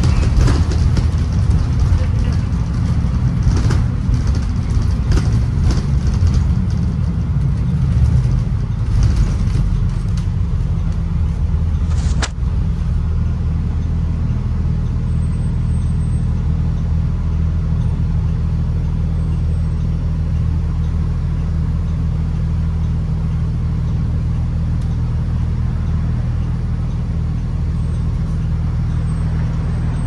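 Inside a 2016 Blue Bird Vision school bus under way: a steady low engine drone, with the body rattling and clicking over the road for the first ten seconds or so. A single sharp click comes about twelve seconds in, after which the drone settles into an even, steady hum.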